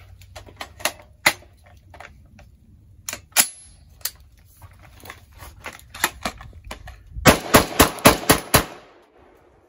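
A string of gunshots from a 300 Blackout AR-15 rifle with a 16-inch upper, firing a magazine of mixed ammunition. Single shots come spaced out over the first several seconds, then a rapid run of about seven louder shots near the end.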